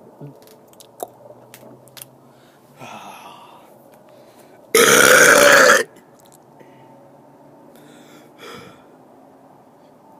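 A man's loud, deliberate burp about halfway through, lasting about a second.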